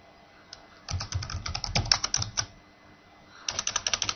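Typing on a computer keyboard: a quick run of key clicks starting about a second in, a short pause, then another fast run of clicks near the end.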